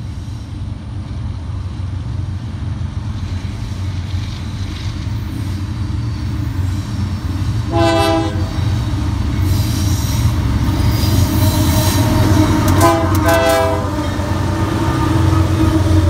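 Union Pacific diesel freight locomotive approaching, its engine rumble growing louder. It sounds its horn: one short blast about halfway through, then two quick short blasts a few seconds later.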